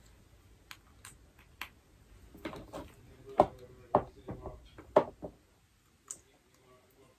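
Small plastic parts of a ring light kit being handled and unpacked: a string of irregular sharp clicks and knocks.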